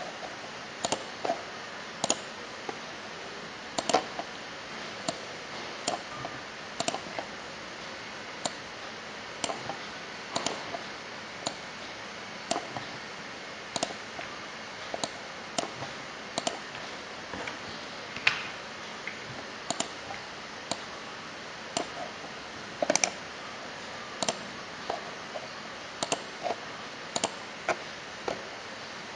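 Computer mouse clicking: short sharp clicks, single or in quick pairs, at irregular intervals of about a second, over a steady low hiss.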